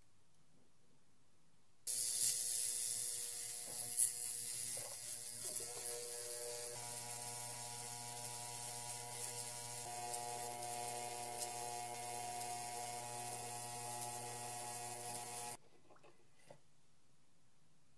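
Small ultrasonic cleaner running with a pearl oyster shell in its water tank: a steady buzz made of several fixed tones over a high hiss. It starts about two seconds in with a couple of sharp knocks and cuts off suddenly about two seconds before the end.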